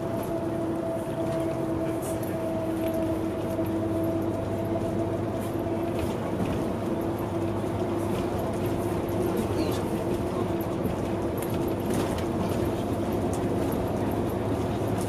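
Large bus in motion: steady engine and road noise with a constant hum and a steady whine.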